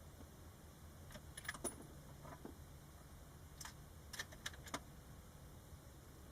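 Light metallic clicks and clinks of small hard objects being handled, in two short clusters a couple of seconds apart.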